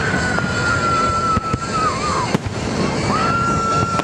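Fireworks display: a dense background of bangs and crackle with a few sharp reports, over which long high whistles sound; the first holds about two seconds and then slides down, and another rises in about three seconds in and holds.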